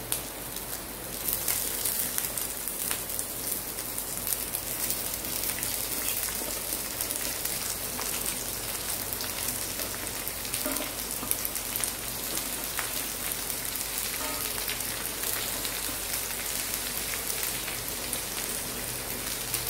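Boiled cluster beans frying in hot oil with onions in a non-stick kadai: a steady sizzle with fine crackling.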